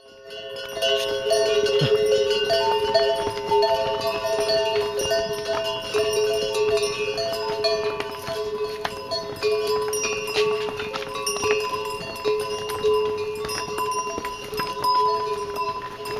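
Background music of long, held tones over a steady drone, with many sharp clicks scattered through it.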